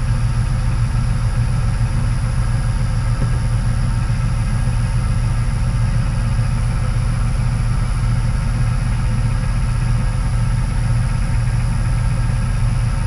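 Myford lathe running steadily under power, a constant motor-and-gear hum with no change in speed.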